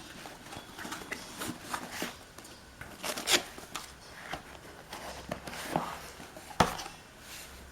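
An Amazon shipping package being opened and handled by hand: irregular rustling and crinkling with sharp clicks and taps, loudest about three seconds in and again a little past six seconds.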